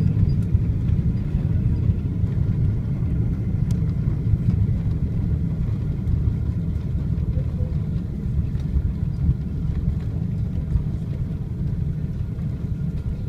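Cabin noise of a Boeing 777-200 heard from a seat behind the wing: a steady, loud low rumble of engines and airframe with a faint engine whine above it, slowly getting quieter.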